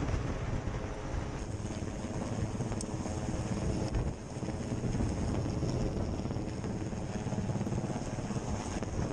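Rescue helicopter hovering low overhead: steady rotor and engine noise with a faint high whine, mixed with strong wind buffeting the microphone.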